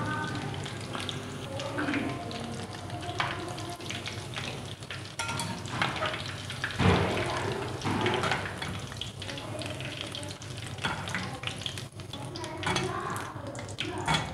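Coated chicken drumsticks sizzling and crackling as they deep-fry in hot oil in a steel kadhai. A wire skimmer knocks and scrapes against the pan as they are lifted out, the loudest knock about seven seconds in.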